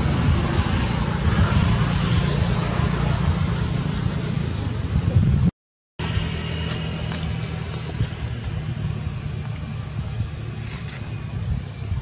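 Steady rumble of a motor vehicle's engine running. The sound cuts out for half a second about halfway through, then returns a little quieter.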